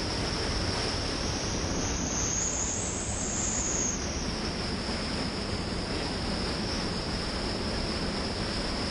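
Loud, steady rush of whitewater churning through a river rapid.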